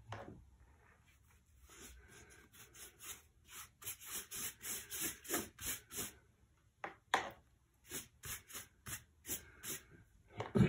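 Wide hake brush loaded with water swept back and forth over rough Arches watercolour paper, wetting the sheet down. The brush makes brisk, scratchy rubbing strokes, about three a second.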